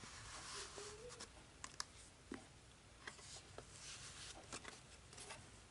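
Faint scraping and rustling of thick cardboard as a pull-tab in a board book is slid, with a few soft clicks and taps from handling the pages.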